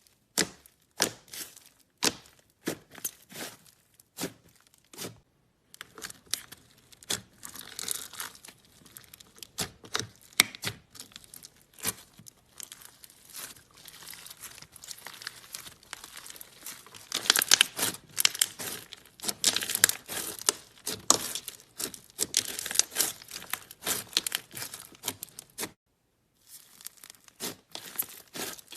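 Slime being squeezed, poked and stretched by hand, giving a rapid crackle of small sticky pops and clicks that grows densest past the middle. It drops out briefly twice, once early and once near the end.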